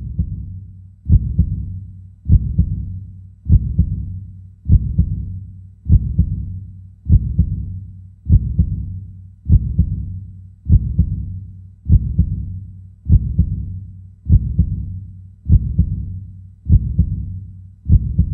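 Deep, booming thuds repeating steadily about every 1.2 seconds over a low drone, a heartbeat-like pulse of intro sound design.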